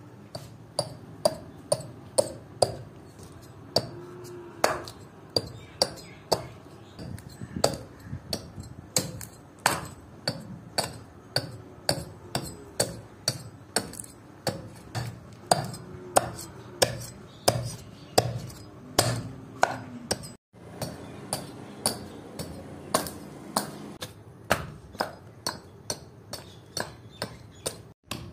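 Small hatchet chopping into a green wooden branch: a steady run of sharp blows, about one and a half a second, hewing the wood down. The blows break off for a moment about two-thirds of the way through.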